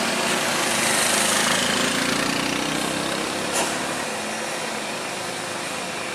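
Road traffic with truck and car engines running as vehicles pass, one engine rising in pitch between about one and four seconds in. A short click a little after three and a half seconds.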